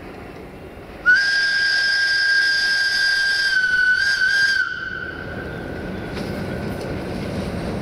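CFR class 060-DA (LDE2100) diesel-electric locomotive sounds its whistle horn in one long steady blast of about three and a half seconds, warning of its approach to a level crossing. The diesel engine's running then grows steadily louder as the locomotive draws near.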